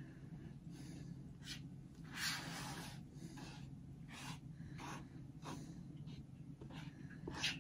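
Soft scraping strokes of a utensil against a saucepan as melted chocolate is scraped out, one louder about two seconds in, over a steady low hum.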